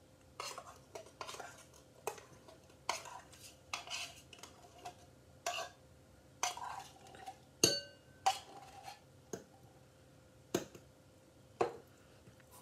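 A metal spoon scraping condensed milk out of a tin can and knocking against the can and a ceramic bowl: irregular clinks and scrapes, about a dozen in all. The loudest, a sharp ringing clink, comes about two-thirds of the way through.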